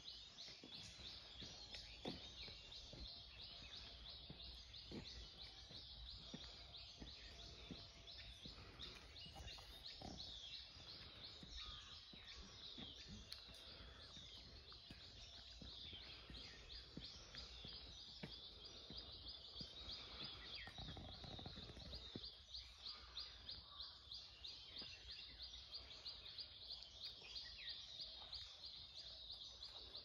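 Faint morning woodland ambience: a continuous high-pitched chirping chorus with a fast, even pulse, over a low rumble and scattered soft thumps.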